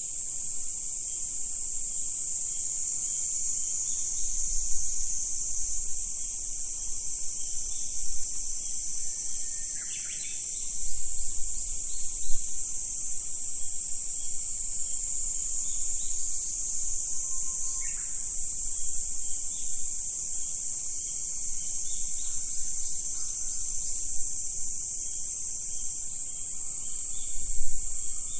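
Steady high-pitched chorus of calling insects, with a few scattered short bird calls over it, including two falling whistles, one about a third of the way in and one past halfway. A few brief low rumbles come and go.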